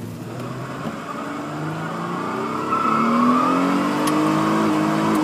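Honda van's engine revving, heard from inside the cabin: the pitch climbs and the sound grows louder over the first three seconds, then holds at high revs, building up to a tyre-smoking burnout.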